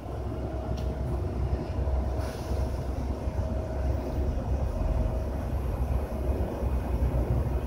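Steady deep rumble with a faint constant hum above it.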